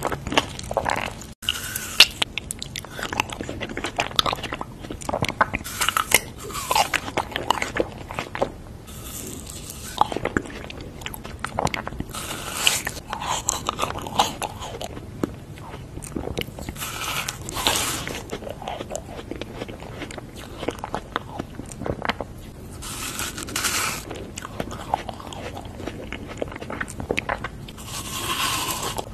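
A person biting into and chewing frozen ice cream bars, with a loud crunchy bite every few seconds and a steady crackle of chewing between them.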